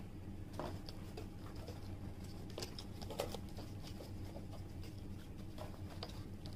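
Faint scattered taps and rustles of hands handling fast-food packaging and a lidded paper drink cup on a table.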